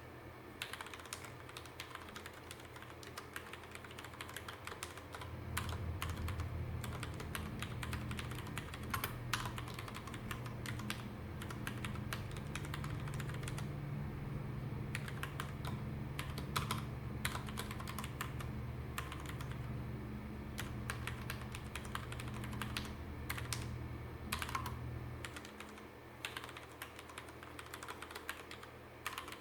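Typing on a Ducky One mechanical keyboard with Cherry MX Red linear switches and DS-profile keycaps: an irregular, steady run of key clacks. A low hum sits beneath it from about five seconds in until a few seconds before the end.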